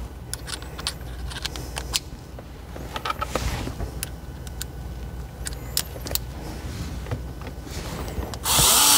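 Small clicks and knocks of plastic trim and screws being handled, then near the end a cordless electric screwdriver runs for about a second, driving a screw into the plastic centre console.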